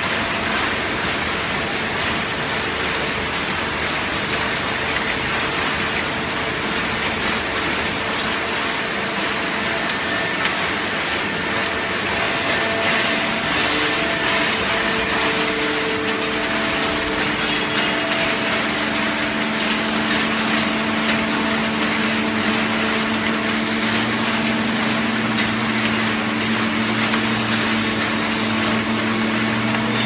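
Automatic horizontal baler for plastic bottles running: a steady machine noise with a constant hum, which comes in stronger, with a lower hum added, from about two-thirds of the way through.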